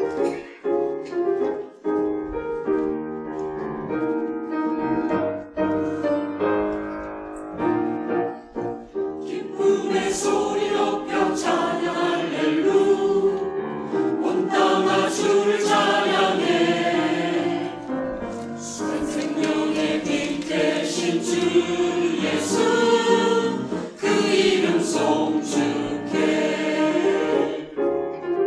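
Mixed choir of men's and women's voices singing a church anthem with grand piano accompaniment, growing louder and fuller about nine seconds in.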